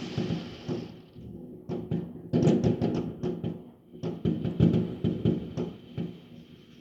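Fireworks going off in rapid clusters of sharp bangs and crackles, with short lulls between the volleys.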